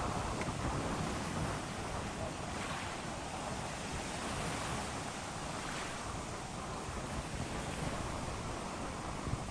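Sea surf washing in on a beach, a steady rush that swells and eases, with wind buffeting the microphone.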